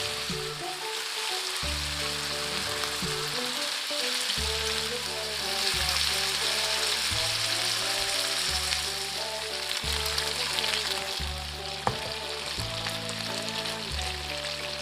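Meat sizzling steadily in a hot frying pan, a constant crackling hiss, with one sharp click about twelve seconds in; background music with a steady bass line plays underneath.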